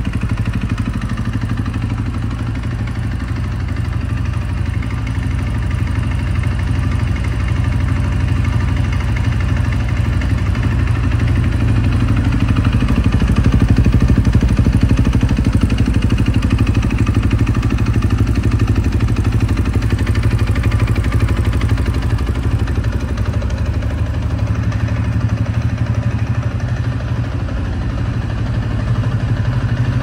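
A KTM EXC-F 450 enduro bike's single-cylinder four-stroke engine idling steadily through an Akrapovič exhaust. It grows a little louder about halfway through.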